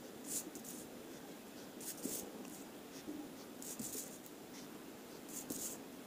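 Felt-tip whiteboard marker drawing short strokes on paper: four brief high scratches, roughly one every one and a half to two seconds, over a low steady room hum.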